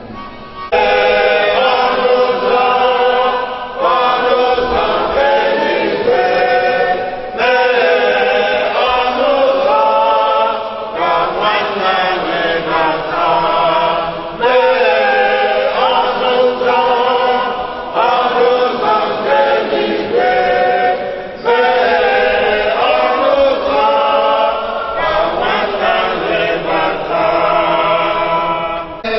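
A choir singing a church hymn in phrases of about three to four seconds each.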